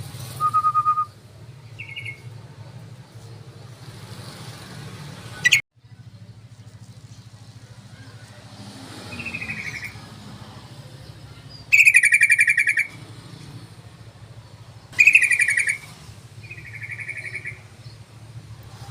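Yellow-vented bulbul (trucukan) singing in a string of short, quick-pulsed phrases, the loudest two about twelve and fifteen seconds in, over a steady low hum.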